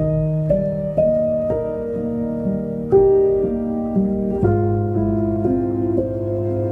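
Background piano music: a slow melody of held notes, a new note about every half second, coming in suddenly at the start.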